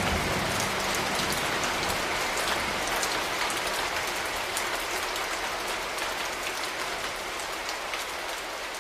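Steady rain falling, a dense patter of drops, slowly fading out.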